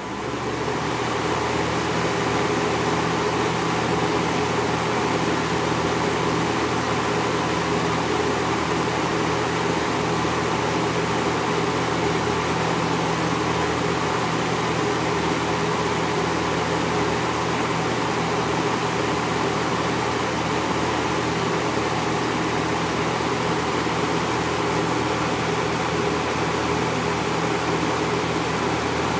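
Lasko 3723 20-inch box fan running steadily, with a rush of air over a low motor hum, its motor freshly cleaned and oiled. It comes up to speed over the first couple of seconds, then holds level.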